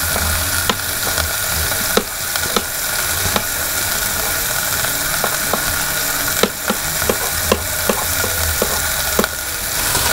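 Beef roast sizzling steadily as it browns in olive oil in an electric pressure cooker on browning mode. Over the sizzle, a knife chops garlic on a plastic cutting board in about a dozen irregular taps.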